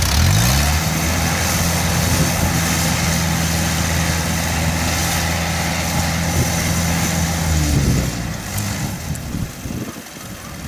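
Isuzu 93 diesel engine on a homemade crawler rice tractor, revving up quickly at the start and holding a steady high speed as the tractor drives across the field. About eight seconds in, the engine tone drops away.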